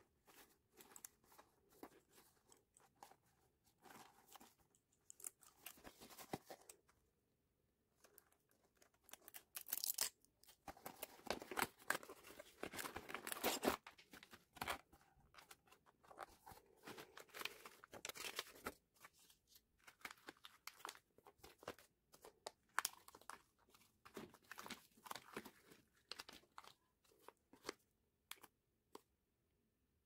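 Keycap-set packaging being opened by hand: rustling, crinkling and tearing with scattered small clicks and taps. The loudest tearing comes about ten to fourteen seconds in.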